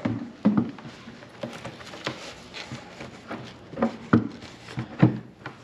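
Skar Audio subwoofer being pressed and shifted in the mounting hole of a carpeted subwoofer box, knocking several times at irregular intervals as it bottoms out against the back of the box: the driver is too deep for the enclosure.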